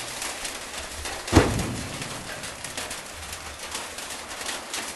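Cement bags being unloaded from a delivery truck: one heavy thud about a second and a half in, among rustling and light clicks.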